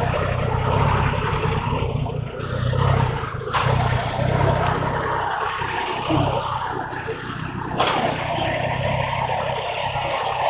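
Motorcycle engine running steadily at low revs, with two sharp clicks about four seconds apart.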